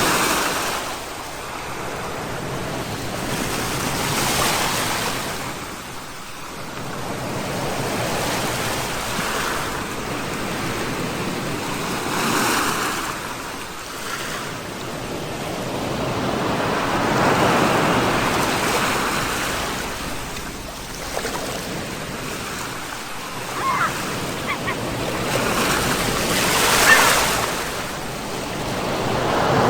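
Sea surf washing in, the rush of each wave swelling and fading every four to five seconds. Two brief high calls sound near the end.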